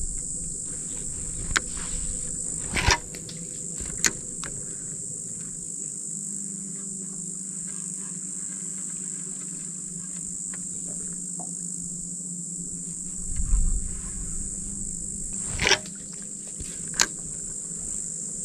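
Steady high-pitched buzzing of insects in the mangroves, with a few sharp clicks and knocks from a spinning rod and reel being handled.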